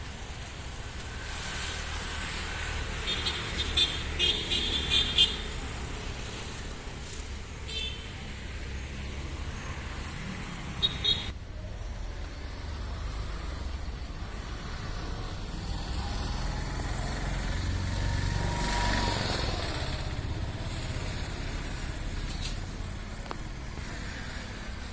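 Outdoor street ambience: a steady rumble of road traffic, with a vehicle passing more loudly about three-quarters of the way through. A few short, high-pitched sharp sounds cluster near the start.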